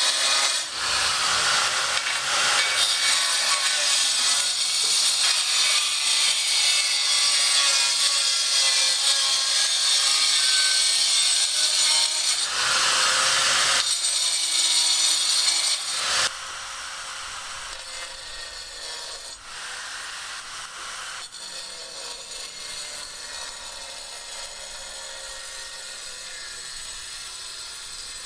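A power tool working on material with a continuous rough, rasping noise. It is loud for about sixteen seconds, then drops suddenly to a quieter level and keeps going.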